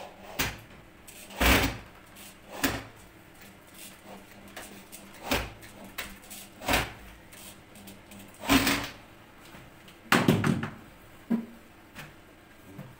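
Aluminium kitchen cabinet drawer being fitted by hand: about nine sharp knocks and bangs at uneven intervals.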